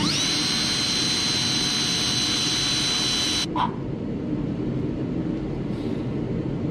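Cordless drill spinning up with a rising whine and running at a steady pitch for about three and a half seconds as it cuts a hole through the back of a plastic dash cubby pocket, then stopping, followed by a single click.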